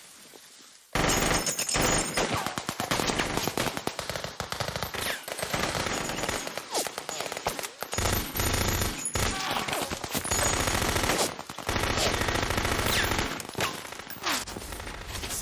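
Machine-gun fire from a war-film soundtrack, starting suddenly about a second in and going on in long rapid bursts with a few short breaks.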